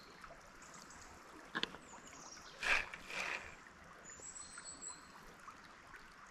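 A small trout stream running faintly and steadily, with a few short, sharp noises about one and a half, two and a half and three seconds in, and a faint high whistle near the middle.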